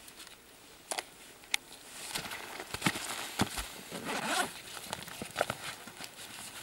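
Two sharp plastic clicks, like a small hard plastic box being snapped shut, then rustling, clicking and zipper sounds as the box is pushed into a fabric backpack pocket.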